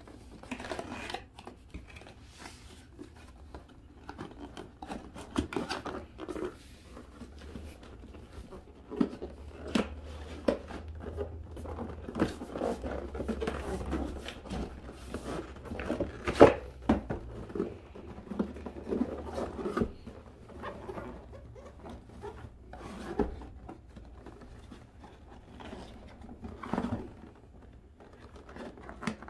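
Cardboard packaging being handled and slid apart: an uneven run of scraping and rustling of cardboard against cardboard, with scattered light taps and one sharper knock about halfway through.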